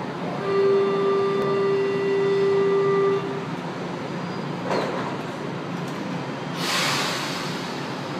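São Paulo Metro train's door-closing warning sounds a steady tone for nearly three seconds. A brief falling squeal follows, and near the end a short burst of air hiss as the doors shut, over the steady rumble of the station.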